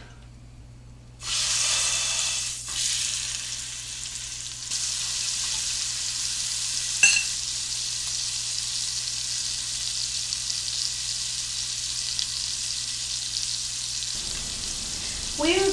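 A beef roast laid into a hot skillet of oil and melted butter, searing: the sizzle starts suddenly about a second in, loudest at first, then settles into steady frying. One sharp click sounds about seven seconds in.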